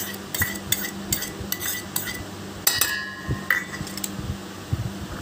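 A metal spoon scraping and tapping on stainless steel bowls while whisked yogurt is spooned out, making a string of light clinks. About halfway through, one clink rings on for nearly a second.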